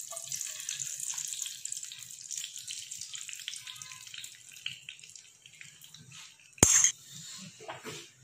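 Beaten egg with chopped vegetables sizzling and crackling in hot oil in a frying pan as an omelette begins to set, the sizzle slowly dying down. A single sharp knock about two-thirds of the way through.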